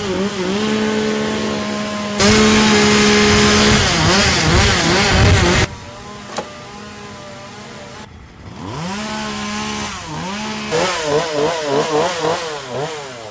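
Chainsaw engine running, steady at first, then at full throttle with its pitch rising and falling as it cuts downed branches. A single sharp knock comes about midway, and near the end the saw is revved in quick repeated blips.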